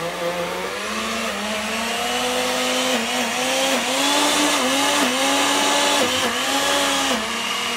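Blender motor starting at maximum power and puréeing hot cooked cauliflower with butter. Its whine rises as it spins up, then dips and recovers several times as the thick purée loads the blades.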